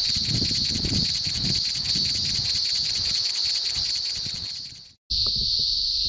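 A chorus of male cicadas buzzing together as a steady, high-pitched drone with a rapid even pulse. It fades out about five seconds in and, after a brief break, starts again.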